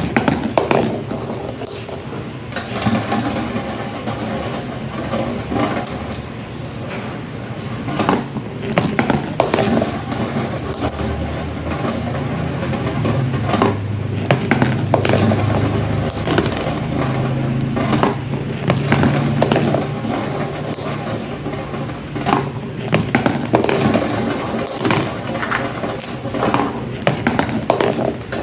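Marbles rolling along a marble run: a continuous rolling rumble, heavier for several seconds midway, broken by frequent sharp clicks as marbles knock against the track and each other.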